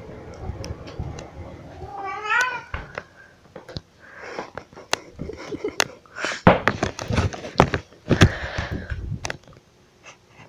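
Domestic cat meowing: one rising meow about two seconds in, then louder, harsher cries in the middle and toward the end. Sharp clicks and knocks are scattered among the calls.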